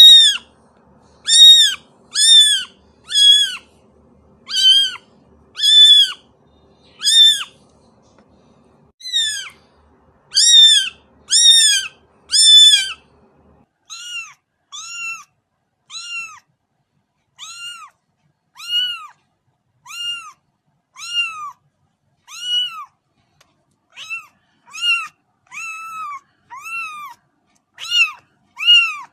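Kittens mewing: a long series of short, high-pitched mews, roughly one a second. About halfway through, the mews become quieter and a little lower, from a different kitten.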